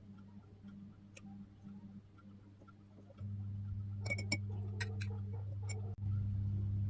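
Low steady hum, louder from about three seconds in, with a short run of light clicks and taps around the middle.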